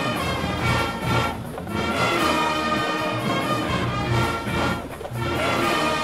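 A marching band's brass playing a song together with a rock band on bass and drums: sustained horn chords over a steady beat, with brief breaks in the phrase about a second and a half in and near the end.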